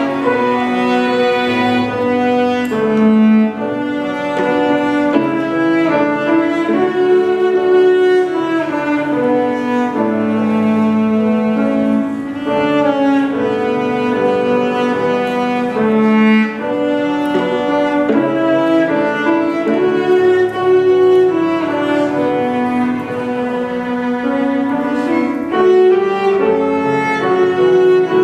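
A string ensemble of two violins, viola and cello, with piano, playing a slow hymn arrangement in held, bowed notes that change every second or two.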